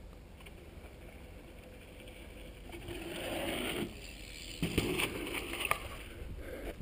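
Dirt jump bike's knobby tyres rolling over a dirt trail, growing louder as the bike comes past close by. Then a sharp knock as it drops off a lip and lands, and a few smaller rattles as it rolls away.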